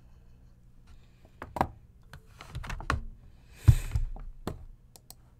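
Handling noise as the recording device is moved: a scattered run of clicks and taps, with one heavier thump about two-thirds of the way through.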